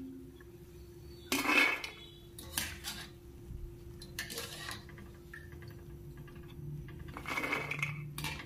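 A wire-mesh skimmer scraping and clinking against a steel kadhai as fried mathri are scooped out of the oil, in four short bursts of metal clatter. A steady low hum runs underneath.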